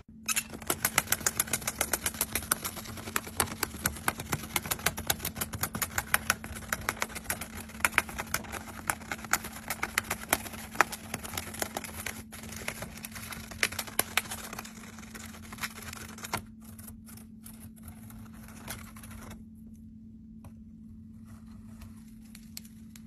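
Lovebird snipping and shredding a paper strip with its beak: rapid dry clicks, several a second, thinning out to a few scattered ones after about sixteen seconds, over a steady low hum.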